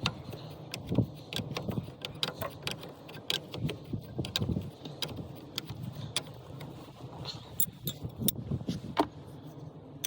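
Irregular metallic clicks and clinks of a wrench and metal fittings being handled and tightened, several sharp ticks a second at times.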